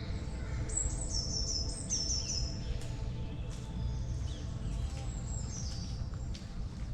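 Woodland songbirds singing: a run of high, quickly repeated notes in the first half, and more short high phrases about five seconds in, over a steady low rumble.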